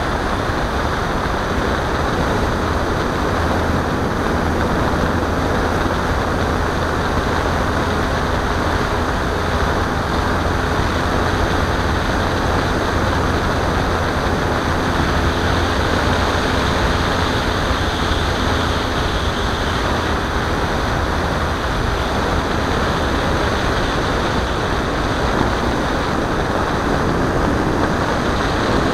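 Steady rush of air over a model airplane's onboard camera in flight, with a faint steady hum of its motor and propeller beneath it.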